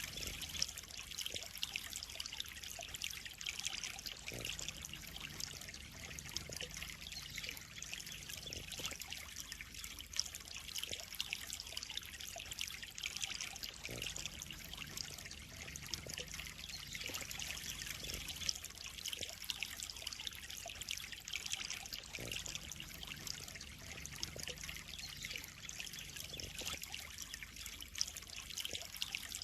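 Water trickling and splashing steadily into a koi pond, a continuous bright hiss of running water.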